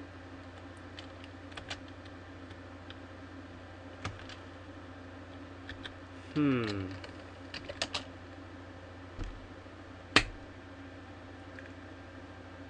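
Scattered computer keyboard keystrokes, single clicks a second or more apart, with one sharp louder click about ten seconds in, over a steady low background hum. About six seconds in, a person gives a short vocal hum that falls in pitch.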